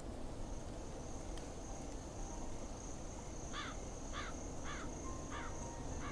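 Night street ambience: a steady high insect trill over a low background hum. About halfway through, a series of short repeated chirping calls comes in at roughly one every 0.6 seconds.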